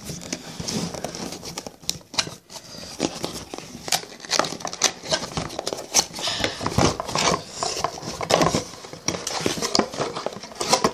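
Cardboard box of a Weazel Ball toy being opened and handled by hand: irregular scraping, tapping and crinkling of cardboard and packaging.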